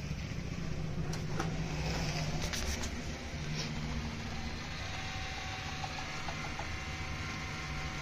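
Desktop computer switched on and running with a steady fan hum, with a few light clicks from its front-panel button and keyboard keys being pressed.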